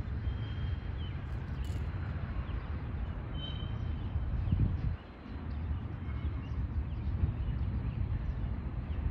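Low, steady rumble of a freight train of covered hopper cars rolling away down the track, dipping briefly about five seconds in, with a few short bird chirps over it.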